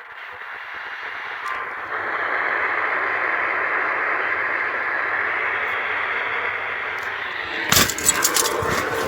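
Radio receiver static: a steady hiss that swells in over the first two seconds, then loud irregular crackling near the end.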